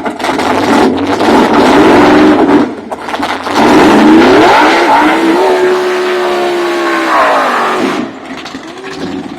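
Pontiac Firebird's engine at full throttle on a drag-strip pass. Its pitch climbs, holds steady for about two seconds, then drops and fades away near the end.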